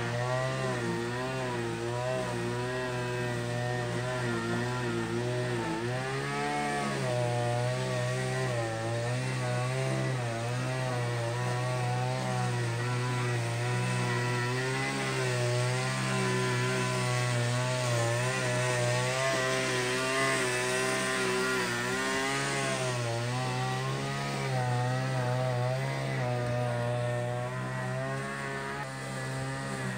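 Tractor engine running steadily, a continuous engine drone whose pitch wavers slightly up and down.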